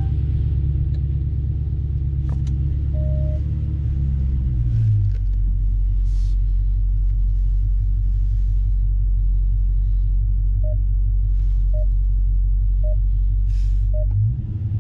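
The 6.4-litre (392) HEMI V8 of a 2023 Dodge Challenger Scat Pack idling just after a cold start, heard from inside the cabin. The fast idle drops to a lower, steady idle about five seconds in, and the engine note dips and swells briefly near the end. Short electronic beeps sound once about three seconds in and then about once a second near the end.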